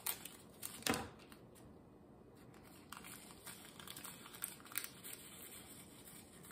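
Small plastic bags of diamond-painting drills crinkling as they are handled, with two sharper rustles in the first second, the louder about a second in, then faint rustling and light ticks.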